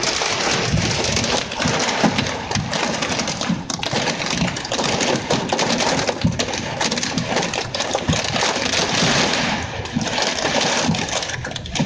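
Heavy rain and hail pelting a vehicle's roof and windows, heard from inside the cabin: a dense, unbroken clatter of many sharp hits over a steady wash of rain.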